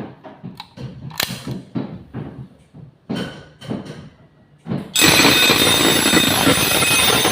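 A series of sharp clicks and knocks, then about five seconds in a fire alarm bell starts ringing loudly and without a break.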